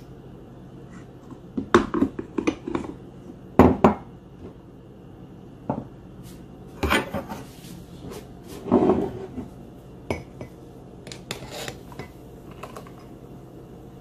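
Kitchenware clattering: a metal spoon, a glass mug and a metal milk jug clinking and knocking together in several short bursts, the loudest about two, four and nine seconds in.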